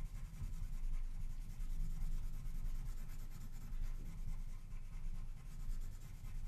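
A woodless colored pencil (color stick) shading lightly back and forth on paper: a continuous soft rubbing of pigment strokes.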